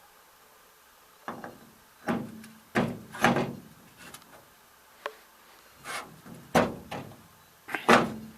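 Irregular metallic knocks and clanks, about eight spread over several seconds, a few with a short ring after them: the freshly welded clutch ratchet parts of a walk-behind tractor being handled and knocked together.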